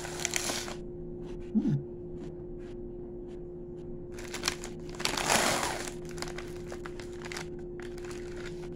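A person chewing an Oreo cookie close to the microphone: small crunches and mouth clicks, a brief hummed 'mm' about one and a half seconds in, and a louder rustle a little past the middle, over a steady hum.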